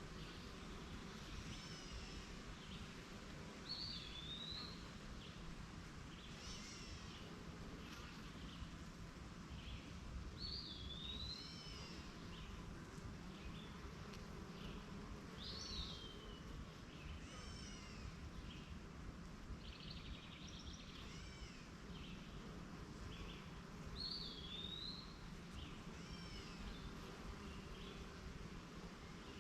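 Small birds calling and chirping again and again, one hooked call recurring several times, over a faint steady hum of honeybees at a hive.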